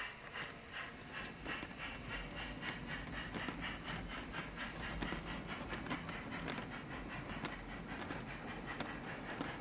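Small garden-railway model locomotive pulling a train of empty wagons away from a station: a regular ticking beat of about three to four a second over a low rumble of wheels on track.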